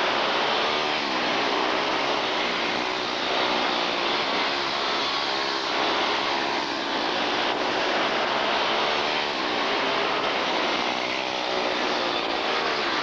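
Several quarter midget race cars' small single-cylinder engines running flat out around a dirt oval, their overlapping whines rising and falling in pitch as the cars pass and turn.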